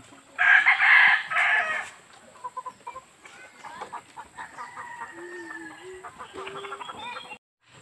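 A rooster crows once, loudly, about half a second in, for about a second and a half, followed by quieter short calls of chickens clucking.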